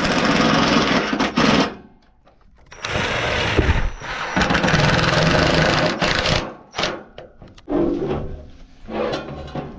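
Power tool running in two long runs, one short and one a few seconds long, followed by quieter knocks and clatter of parts being handled.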